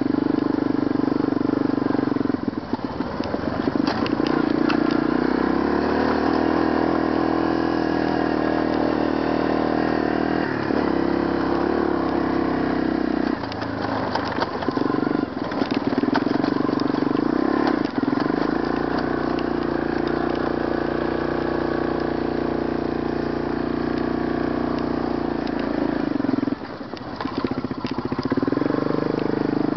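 ATV engine running under way, its pitch stepping up and down several times with throttle and speed changes, and easing off briefly near the end. Occasional knocks and rattles come through as it rides over bumps.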